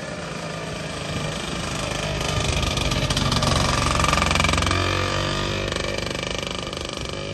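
Motor vehicle engine passing close by, growing louder to a peak about halfway through, then fading.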